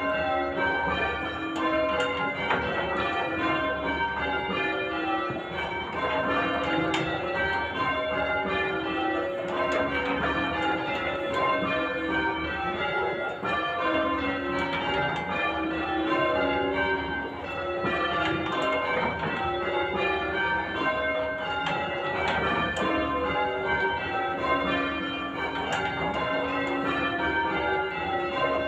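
Tower bells in full-circle change ringing: a ring of church bells struck one after another in a steady, unbroken rhythm, their order shifting from row to row.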